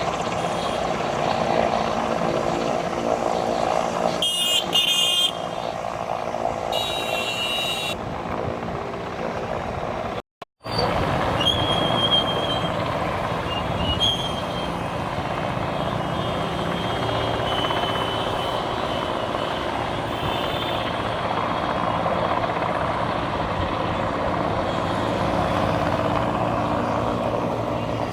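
Steady engine noise, with two short high-pitched beeps or horn sounds about four and seven seconds in, and a brief cut to silence about ten seconds in.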